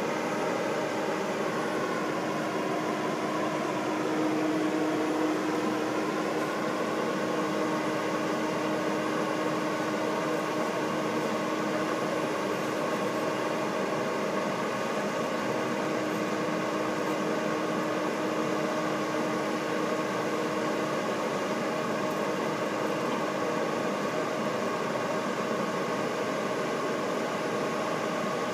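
Fire engine's engine running steadily, a droning whir with a steady hum through it. Its pitch sags and comes back up within the first several seconds.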